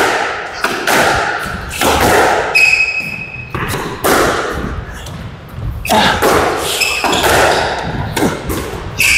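Squash rally: the ball is struck by rackets and slaps against the court walls, a hit every second or two, each impact echoing in the enclosed court.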